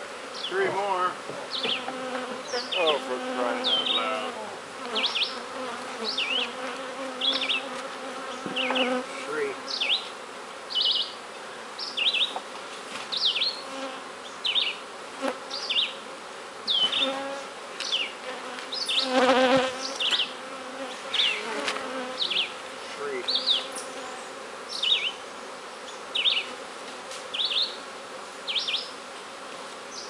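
Honeybees buzzing around opened hives: a steady hum, with single bees passing close by now and then, their buzz wavering in pitch, loudest about two-thirds of the way through. Over it, short high chirps repeat about once a second.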